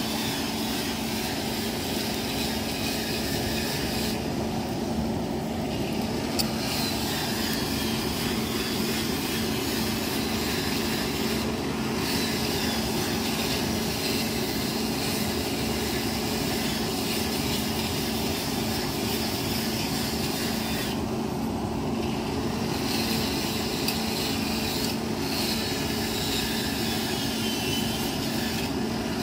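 Forge blower running steadily, a constant rush of air with a low hum, forcing air into a charcoal fire while the blade heats for hardening.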